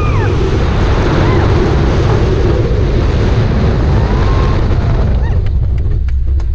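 Wind buffeting the roller coaster's onboard camera microphone over the rumble of the train running on its steel track. Near the end the wind noise eases and a few sharp clicks start as the train slows onto the straight toward the station.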